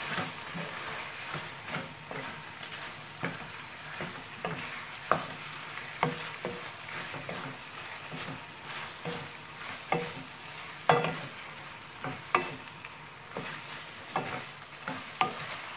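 Chicken and carrot strips frying in sauce in a stone-coated nonstick wok, a steady sizzle under irregular scrapes and knocks of a wooden spatula stirring them.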